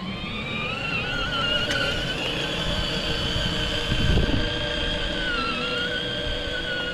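Electric drive motors of a 24V ride-on toy car whining as it drives, rising in pitch over the first second as it picks up speed and then holding steady. There is a low thud about four seconds in.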